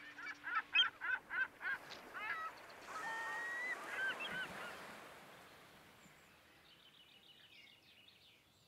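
Birds calling: a quick run of short calls, then a longer held call and a few more, fading out after about five seconds, with faint high chirps near the end.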